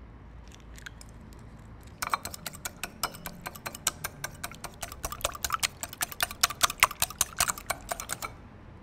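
Small wire whisk beating an egg in a ceramic bowl: the wire tines strike the bowl in rapid, quick clicks, starting about two seconds in and stopping just before the end.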